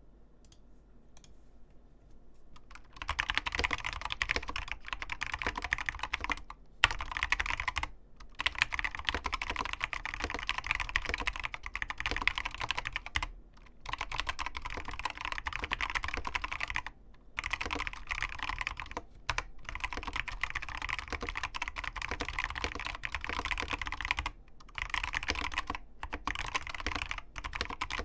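Fast continuous typing on an ABKO Hacker K660 mechanical keyboard with Kailh Box optical linear switches and OEM-profile crystal keycaps: a dense run of key clicks starting about three seconds in, broken by several short pauses.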